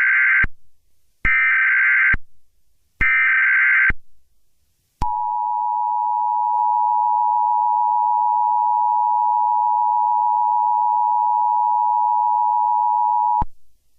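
Emergency Alert System SAME header: three short bursts of warbling digital data tones, each under a second, followed about a second later by a steady two-note attention tone that holds for about eight seconds and then cuts off sharply.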